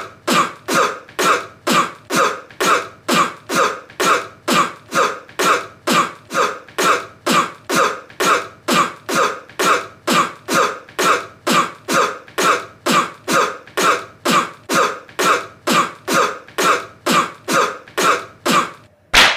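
A person's short cough repeated over and over at an even pace, about two coughs a second, each one identical to the last like a looped recording.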